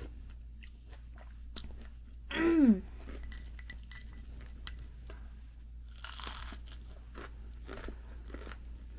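Crunching and chewing of deep-fried shrimp and vegetable fritters (ukoy), close to the microphone, a string of small crackles and clicks. About two and a half seconds in, a short vocal hum falls in pitch and is the loudest sound.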